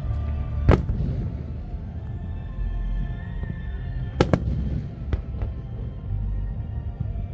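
Aerial firework shells bursting with sharp bangs, one about a second in and a louder cluster around four to five and a half seconds, over steady music with a heavy low bass.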